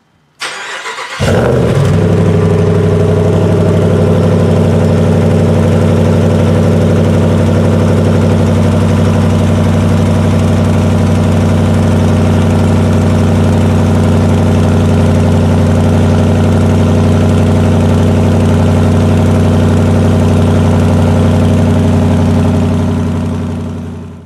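2020 Ram 1500 Rebel pickup's engine cold-starting: the starter cranks briefly, the engine catches about a second in and settles into a loud, steady idle through the exhaust. The sound fades out near the end.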